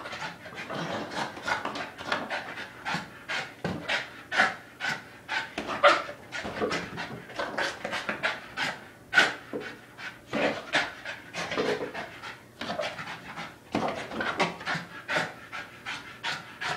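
A small dog panting hard and fast, about three breaths a second, out of breath from jumping at a hanging punching bag.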